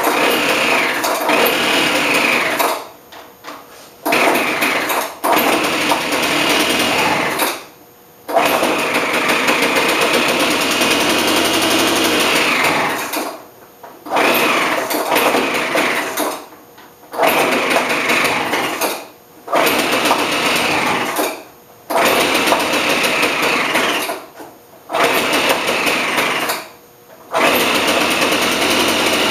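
Craftsman leaf blower's small two-stroke engine running at high revs in stretches of a few seconds, its pitch rising and falling, and dropping away for about a second roughly every two to three seconds. It is running on a freshly rebuilt Walbro carburettor with the metering diaphragm now fitted the right way round.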